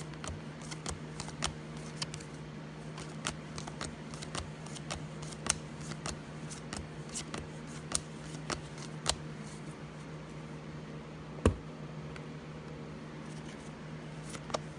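A stack of football trading cards being thumbed through one at a time: irregular short clicks and flicks as each card slides off the stack, with one sharper knock about eleven and a half seconds in. A steady low hum runs underneath.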